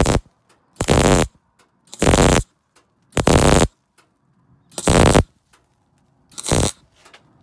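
Stick (arc) welder's electrode crackling and sizzling as it tacks a steel nut onto a bracket, in six short bursts about a second apart, with the arc stopping in between.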